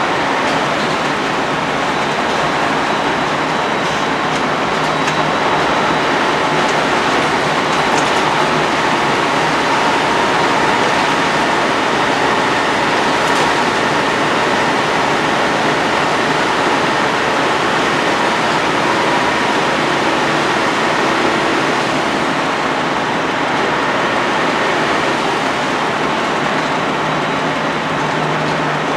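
Cabin noise inside a Volvo B10BLE single-deck bus on the move, its rear-mounted six-cylinder diesel and the road and tyre noise making a loud, steady drone with a few faint whining tones.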